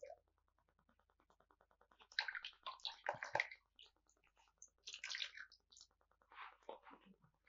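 Faint bursts of water splashing and dripping, a few times: a paintbrush being swished and rinsed in a jar of water.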